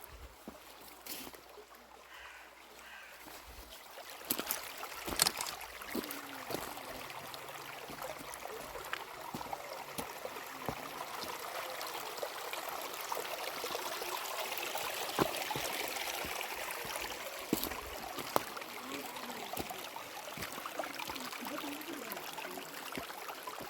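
Flowing water of a river or stream, a steady rush that grows louder about four seconds in, with scattered sharp clicks and knocks over it.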